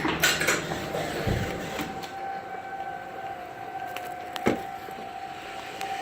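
Distant outdoor warning siren holding one steady wailing tone during its monthly test, faint at first and firmer after about two seconds. A brief thump about four and a half seconds in.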